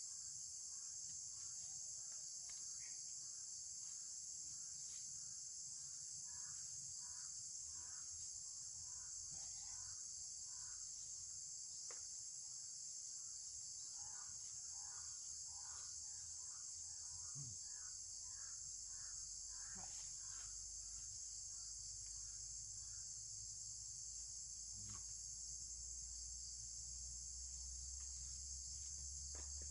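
Steady high-pitched insect chorus, crickets or similar, with a lower repeated chirping about two times a second in two runs and a few faint clicks.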